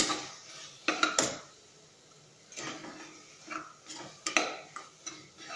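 A metal slotted spoon scraping and knocking against the inside of a pressure cooker while stirring spices into a thick tomato-onion masala. The strokes are uneven, about one or two a second, and the loudest comes right at the start.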